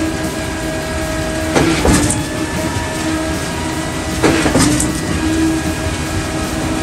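Concrete mixer truck unloading: the engine runs with a steady hum while the drum turns, and wet concrete slides down the steel chute in swells of scraping, rushing noise, about two seconds in and again just past four seconds.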